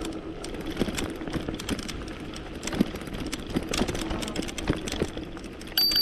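Electric bike's hub motor humming steadily under pedal assist, with clicks and rattles from the bike bumping over a rough sand trail. Near the end a bicycle bell rings once, a clear high ding that keeps ringing, to warn a walker ahead.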